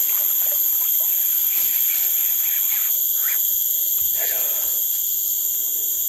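Tropical rainforest insect chorus: a steady, high-pitched buzzing in several bands at once.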